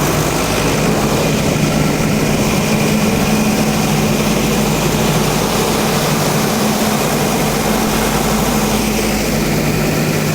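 Nilgiri Mountain Railway toy train running: a steady rumble and noise of the moving train, with a constant low engine hum.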